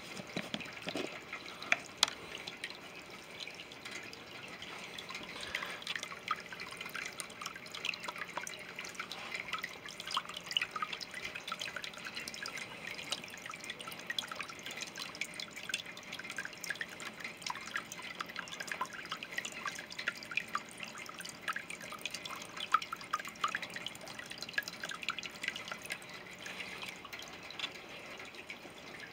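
Water trickling and dripping in a small patio bowl pond, a steady patter of tiny splashes over a faint low hum. A single sharp click about two seconds in.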